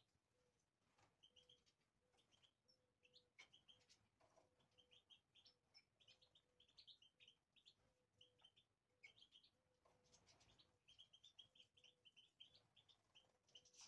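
European goldfinches chirping and twittering faintly, a scatter of short high calls throughout.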